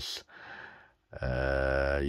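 A man's voice: a faint breath in, then a long, steady hesitation sound, a held "uhh", starting about a second in.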